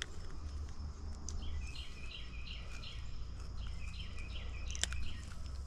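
A songbird singing two runs of quick, evenly repeated high chirps, over a steady low rumble with a few sharp clicks.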